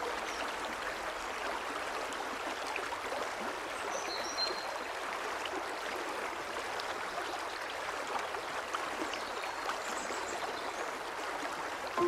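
Mountain valley stream flowing steadily, an even rush of water, with a few faint, brief bird chirps over it.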